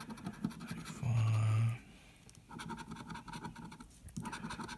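Metal scratcher tool scraping the latex off a $20 Mega Cash instant lottery ticket in quick, rapid strokes. A short, steady, low hum sounds about a second in.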